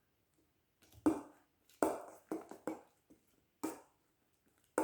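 A utensil stirring a foamy slime mixture of glue and shaving foam in a bowl, in about six short, irregular strokes. This is the stage where glycerin has just been added and the slime is starting to form.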